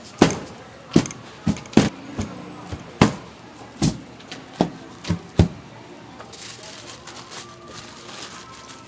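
A series of sharp, unevenly spaced knocks, about ten in the first five and a half seconds, then lighter clatter: kitchen tools striking hard surfaces during food preparation.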